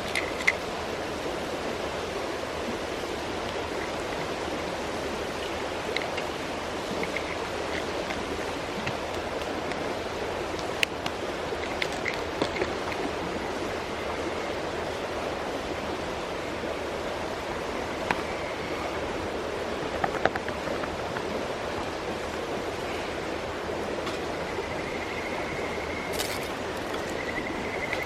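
Mountain stream flowing steadily, with scattered small clicks and knocks and a few faint high tones near the end.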